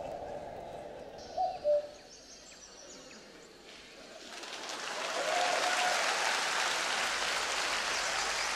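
A couple of short hooting calls, then studio audience applause that swells up about halfway through and carries on steadily.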